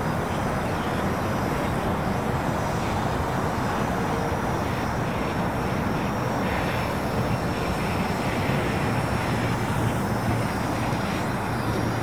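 Parrot Anafi quadcopter's brushless motors and propellers buzzing steadily as it hovers and slowly turns to track a subject, with a faint high whine over a low hum.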